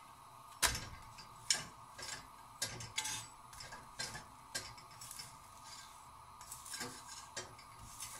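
A spatula tapping and scraping on a tava, a flat griddle pan, as a naan is pressed down around its edges: irregular clicks and short scrapes, the sharpest a little over half a second in, over a faint steady hum.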